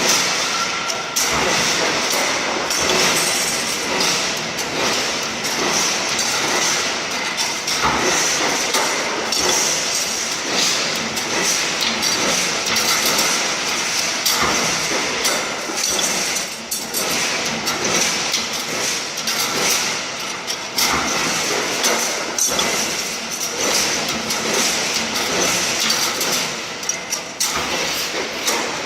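WG-16B wire straightening and bending machine running: a steady mechanical clatter with irregular metallic knocks.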